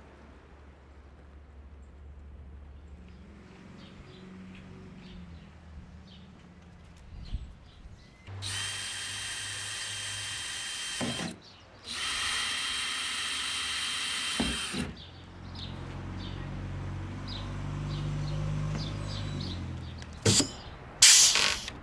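Cordless drill running at speed in two bursts of about three seconds each, boring holes in a canoe hull to take pop rivets for spray-deck fittings. A few sharp clicks follow near the end.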